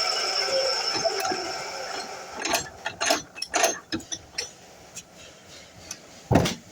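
DeWalt miter saw motor winding down after a cut, its whine fading away over the first two seconds. Then a series of sharp clacks and knocks, the loudest just before the end.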